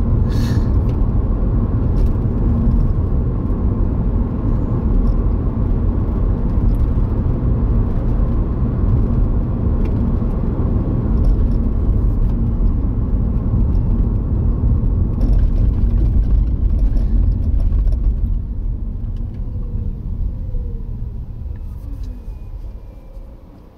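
Car cabin road noise at about 38 mph: a steady low rumble of tyres and engine that fades over the last few seconds as the car slows down.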